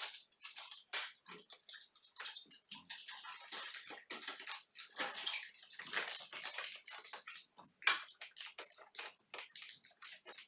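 Water running and splashing in irregular, uneven spurts.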